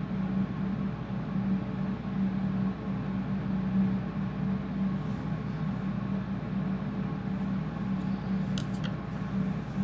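Steady low mechanical hum of a small motor running, with a couple of faint ticks about eight and a half seconds in.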